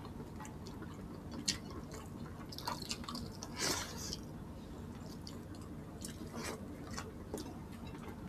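Quiet eating with bare hands: scattered faint wet clicks and smacks of chewing and of fingers pulling soft boiled pork off the bone, with one longer wet smacking sound a little before halfway.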